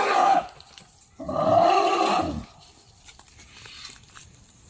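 Baby elephant calling twice, loud, each call rising and falling in pitch; the first call ends just after the start, the second lasts about a second.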